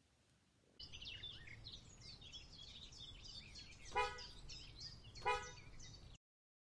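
Outdoor ambience starting about a second in: many small birds chirping over a steady low rumble of traffic, with two short car-horn toots about a second apart. It cuts off abruptly near the end.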